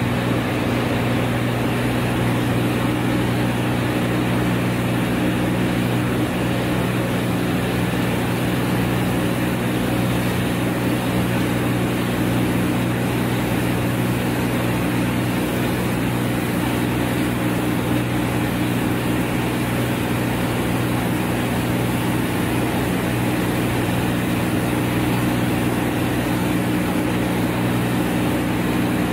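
Compact combined rice milling machine running steadily: a constant hum of several low tones over an even rushing noise, as milled rice pours from its outlet.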